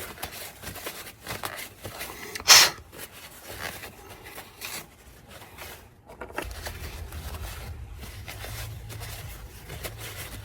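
Hand work on engine fuel injectors and a fuel rail: scattered clicks and scrapes of metal and plastic parts, with one sharp loud snap about two and a half seconds in. A low steady hum comes in past halfway.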